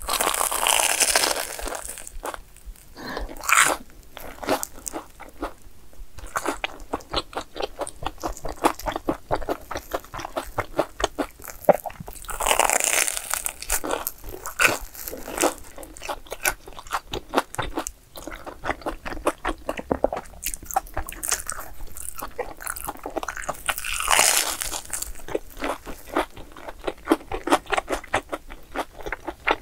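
Close-up eating sounds of sugar-coated fried glutinous-rice cream cheese balls: three loud crunchy bites through the crisp, sugared crust, about twelve seconds apart, each followed by steady chewing.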